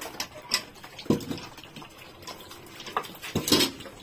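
Pigs grunting in short separate bursts as they feed, the loudest about three and a half seconds in, with a few light knocks of a tin can against a metal bucket.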